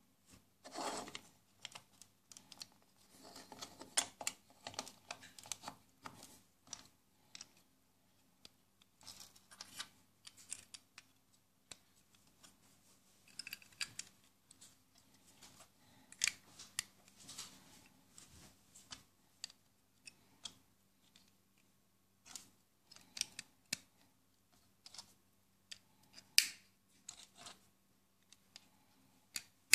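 Plastic Lego and Mega Bloks bricks clicking, snapping and rattling as they are handled and pressed together: irregular small clicks and short scrapes, with a few louder snaps.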